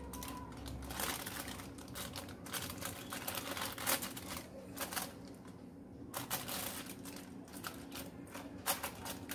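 Aluminium foil crinkling and crackling in irregular bursts as marinated pomfret fish are turned over by hand on a foil-lined grill tray.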